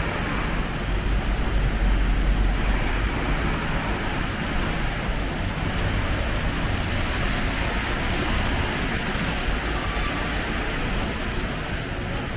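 Steady city street ambience of traffic noise with a deep, continuous rumble.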